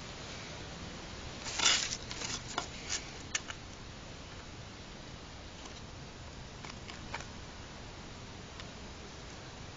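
Small model-kit wall pieces being handled and fitted together on a tabletop: a short cluster of light clicks and scrapes about one and a half seconds in, the first the loudest, then a few faint clicks around seven seconds.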